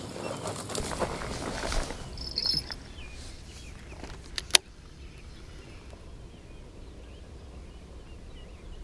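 Footsteps and rustling as someone hurries through bank grass and takes up a fishing rod. A single sharp click about four and a half seconds in, then quiet open-air background with faint bird and insect chirps.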